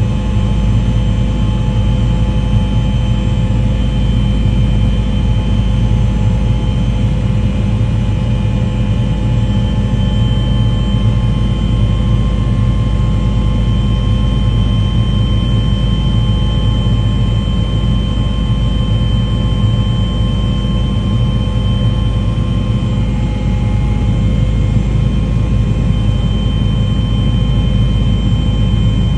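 Steady, loud engine drone with several constant whining tones above it, unchanging throughout.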